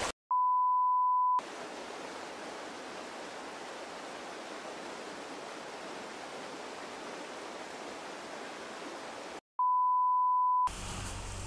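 A steady test-tone beep lasting about a second, as played with colour bars. It is followed by about eight seconds of steady rushing creek whitewater, which cuts off suddenly into a second one-second test-tone beep near the end.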